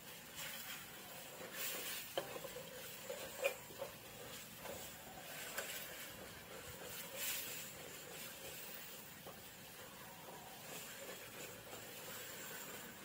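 Metal ladle stirring and scraping green curry paste around a metal wok in irregular strokes, over a faint sizzle of the paste frying.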